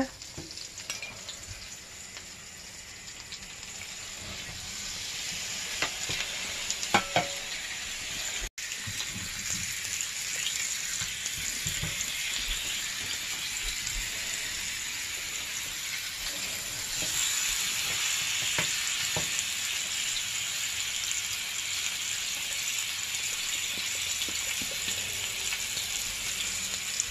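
T-bone steaks sizzling in melted butter on a ridged nonstick grill pan, a steady hissing sizzle. It builds over the first several seconds and gets louder again past the middle, with a few light clicks around six to seven seconds in.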